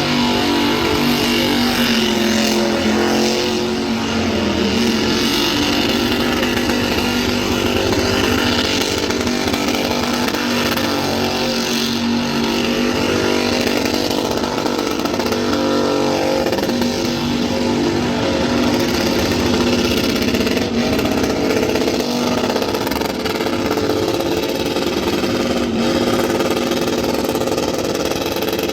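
Car engine running loudly at high revs, its pitch wavering a little but holding steady throughout.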